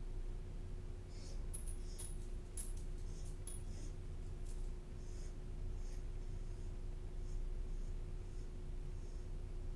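A small dog moving about on a hard floor, making light clicks and jingles, most of them between about one and four seconds in and fainter after, over a steady low room hum.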